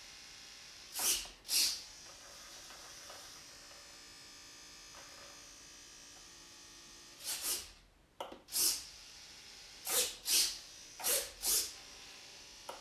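Small RC servos in a Multiplex Lentus glider's wing whirring in short bursts as the flaps and ailerons are driven from the transmitter stick, about ten bursts, mostly in quick pairs as the surfaces move out and back.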